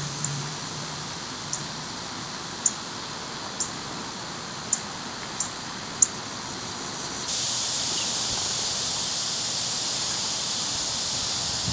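Summer yard ambience: a steady high hiss of insects, with a small bird giving about seven short, sharp chip notes at irregular intervals over the first six seconds. About seven seconds in, the hiss suddenly becomes louder and fuller.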